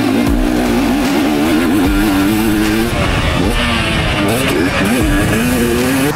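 Dirt bike engine revving up and down as it is ridden round a motocross track, its pitch rising and dropping repeatedly, with music playing underneath.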